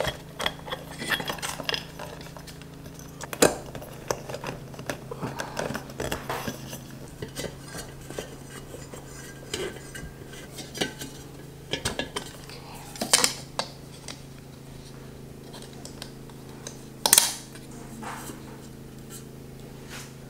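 Ceiling fan's metal canopy and mounting hardware clinking and clicking as they are fitted up against the ceiling bracket by hand: scattered sharp clicks and knocks, with louder knocks about three seconds in, around thirteen seconds and near seventeen seconds. A steady low hum runs underneath.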